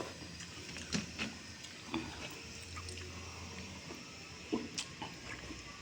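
A person eating dahi pakhala, watery rice with curd, chewing with soft wet mouth clicks and smacks, a few each second, over a faint low hum.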